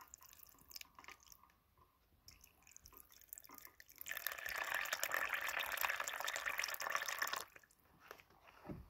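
Water running from the metal spigot of a glass dispenser into a plastic container of dry ramen noodles. There are a few faint drips and ticks at first, then a steady splashing pour for about three seconds that cuts off sharply.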